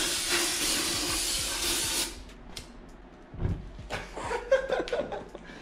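Aerosol brake cleaner sprayed into an open differential housing: a steady hiss for about two seconds that stops abruptly. After it come quieter scattered knocks and clicks, one sharp click louder than the rest.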